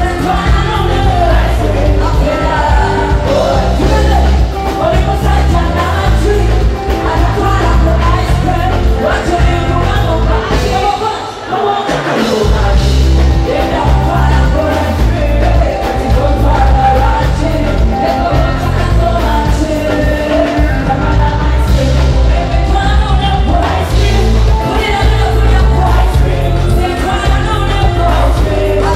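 Live concert music: a woman singing into a microphone over a loud band or backing track with heavy bass. The bass drops out briefly about eleven seconds in, then the beat returns.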